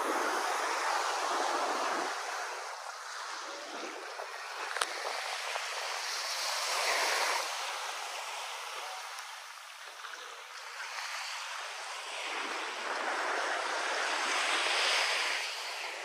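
Small surf washing onto a sandy beach, a hiss of breaking waves that swells and fades every few seconds. A brief click about five seconds in.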